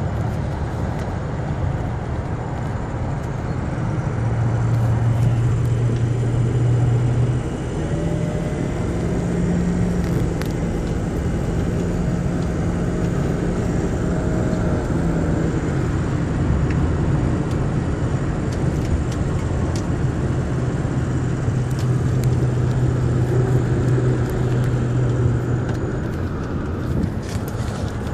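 Ford 6.0 Powerstroke V8 turbo-diesel pickup heard from inside the cab while driving: a steady engine drone with a low hum that steps up in pitch about a third of the way in and drops back later. This is the noise the owner puts down to the engine's fan clutch.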